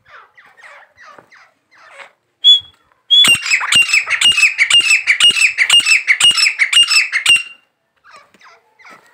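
Grey francolin calling: soft chirping notes, then one loud clear note, then a loud fast run of repeated ringing calls, about three or four a second, which lasts some four seconds and stops.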